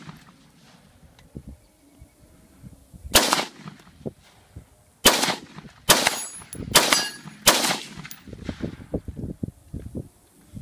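Five shots from a 5.56 AR-15 rifle, fired one at a time with uneven gaps: the first about three seconds in, the other four in quick succession over the next two and a half seconds.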